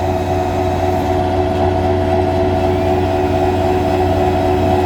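Heavy tree-removal machinery engine running steadily, a constant low hum with a few held tones and no change in pace.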